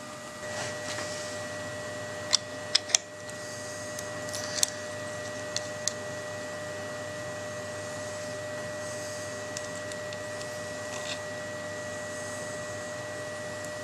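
A few sharp light metallic clicks, clustered in the first six seconds, as an ER11 collet and its nut are fitted onto a CNC router spindle nose with a spanner, over a steady hum.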